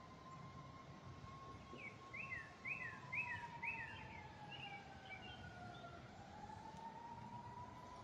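A songbird sings a quick run of about eight down-slurred whistled notes about two seconds in. Under it, a distant siren wails slowly, dipping in pitch and rising again.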